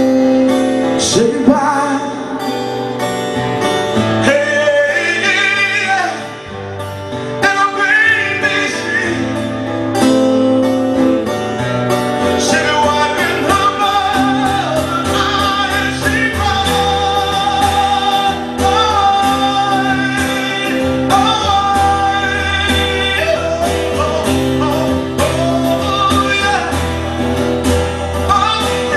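Music: a song with guitar, a bass line and melodic singing with no clear words.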